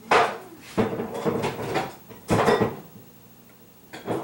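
Kitchen containers knocking and rattling as someone rummages for a plastic jar: a string of about five sharp clatters, the loudest right at the start and halfway through.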